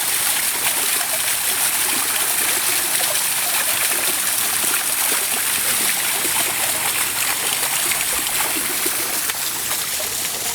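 Steady rush of running water, like a stream or small fall, with splashing and trickling.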